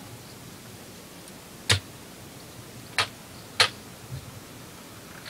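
Three sharp clicks from an M4A1 BB gun's mechanism, the last two close together about half a second apart.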